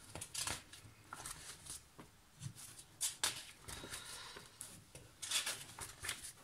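Large printed paper pattern sheets rustling and crackling in irregular bursts as a thick stack of pages is leafed through by hand.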